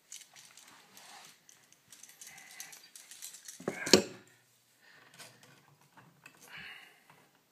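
Small clicks and rattles of a new electrical outlet and its wires being handled, with one sharper click about four seconds in.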